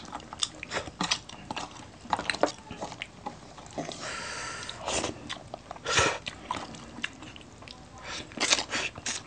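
Close-miked eating sounds from two people eating salmon head and crispy pork knuckle with their hands: chewing and many short, wet lip smacks and clicks.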